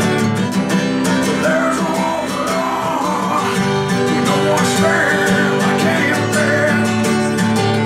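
Acoustic guitar strummed in a delta blues style, with a man singing over it in a raw voice.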